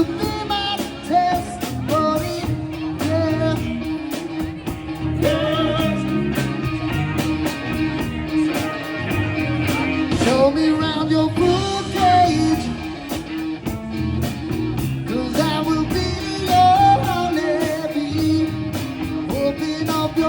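Rock band playing a song with a sung lead vocal, electric guitar and a steady drum beat.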